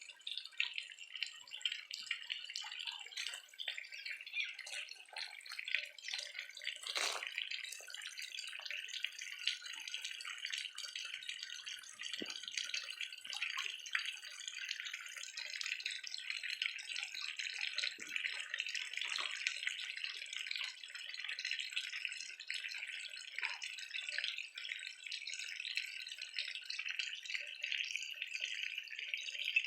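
Small stream of pumped water falling from a concrete dome into a tilapia pond, a steady splashing trickle that aerates the pond. A single sharp click about seven seconds in.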